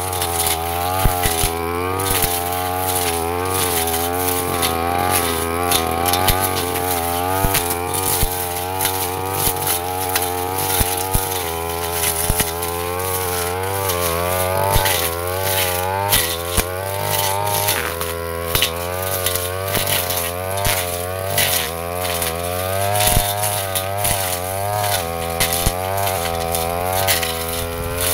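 Backpack brush cutter's small engine running at high revs. Its pitch dips and recovers over and over as the spinning blade cuts through dense undergrowth and woody tree saplings, with frequent sharp ticks as the blade strikes stems.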